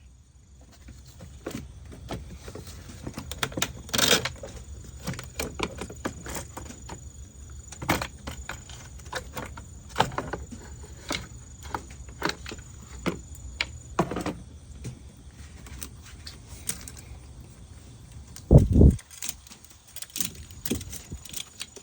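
Scattered metallic clinks and clatter of tools and car parts being handled, with a loud low thump about three-quarters of the way through. A faint high steady whine runs under the first two-thirds and then stops.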